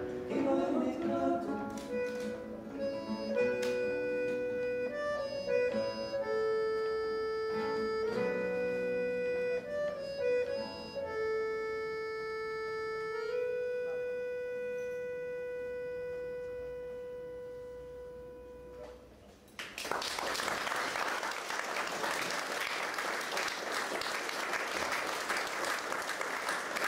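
Live instrumental melody of steady held notes, ending on one long note that fades away. About twenty seconds in, audience applause breaks out and carries on.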